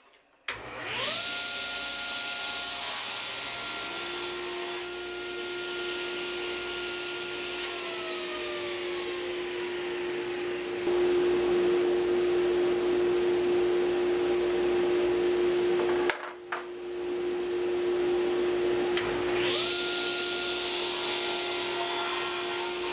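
Table saw crosscutting cherry drawer fronts, running with a dust collector's steady hum. The saw starts suddenly and climbs to speed, later winds down, and cuts off abruptly about two-thirds through before spinning up again near the end.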